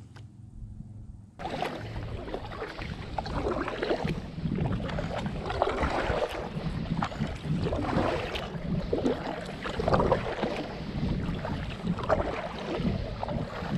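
Double-bladed kayak paddle dipping and splashing in repeated strokes, with water washing along the kayak's hull. It starts about a second and a half in, after a brief quiet stretch.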